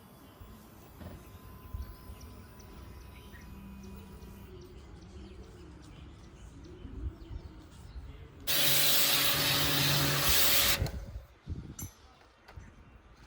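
Electric high-pressure car washer spraying: a loud hiss of the water jet over a steady motor hum. It starts suddenly about eight and a half seconds in and cuts off about two seconds later as the trigger is released, over faint outdoor background.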